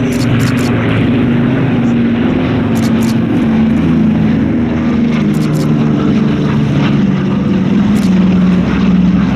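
A Douglas Dakota flying overhead, its two Pratt & Whitney R-1830 Twin Wasp radial engines running steadily. The engine note drops slightly in pitch in the second half as the aircraft passes.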